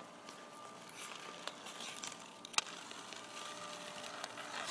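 Faint scraping of ice skate blades on rink ice, with one sharp click about halfway through.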